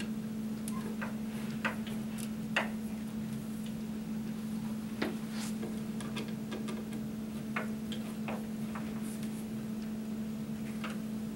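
Scattered, irregular light clicks of a Phillips screwdriver turning cam locks in particleboard furniture panels, the loudest about two and a half seconds in, over a steady low hum.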